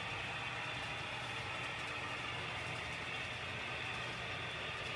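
Model railroad trains running on a layout: a steady low engine-like hum with an even hiss over it.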